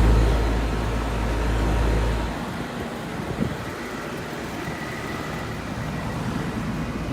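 Air conditioners running: a steady whoosh of fan and compressor. A heavy low rumble fills roughly the first two seconds and cuts off abruptly, leaving the even running noise with a faint high tone.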